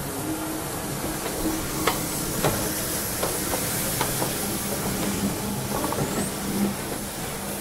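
Steam locomotive 34027 'Taw Valley' hissing steadily from escaping steam, with a few sharp metallic clanks about two seconds in and again around four seconds.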